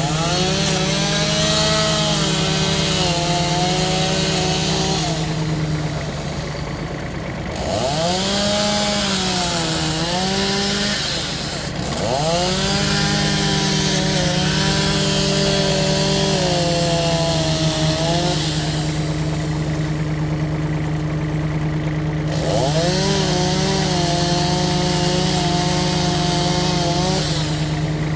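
Chainsaw running at high revs and cutting into a tree trunk in three long stretches. The revs drop briefly between the cuts.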